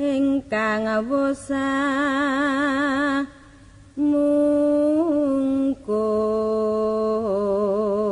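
A solo voice chants a slow Javanese song in long held notes with a wide vibrato, pausing briefly between phrases.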